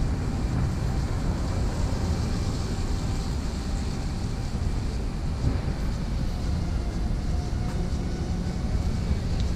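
Steady rumble of city street traffic, with wind buffeting the microphone.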